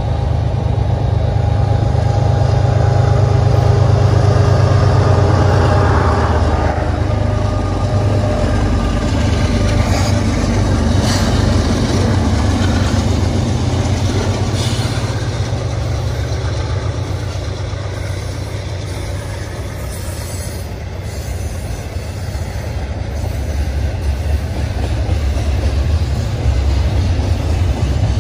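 Freight train passing close by. The diesel engines of three lead locomotives rumble past in the first half, then loaded double-stack container cars rattle and clatter steadily on the rails, with a few brief sharp clanks around the middle.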